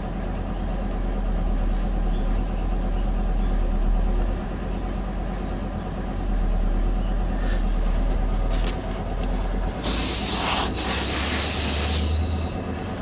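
A steady mechanical hum throughout, with faint scrapes of a small hand tool cutting a runner in moulding sand. About ten seconds in, a compressed-air blow gun hisses loudly for about two seconds, blowing the loose sand out of the freshly cut runner.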